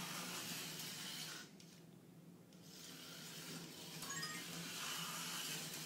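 Slot cars running on the track, their small electric motors giving a hissing whir that drops away about a second and a half in and builds again a second later.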